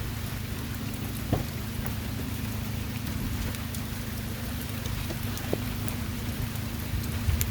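Steady rain falling, with a couple of faint taps.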